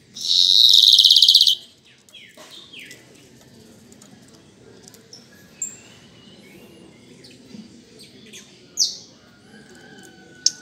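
Male yellow-hooded blackbird singing its buzzy song: one loud, rasping, high-pitched buzz about a second and a half long at the start, followed by a few faint short chirps and a brighter call near the end.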